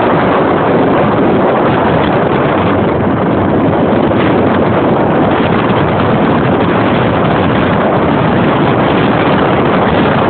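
Loud, steady wind rush on the microphone from a moving vehicle, over the vehicle's road noise.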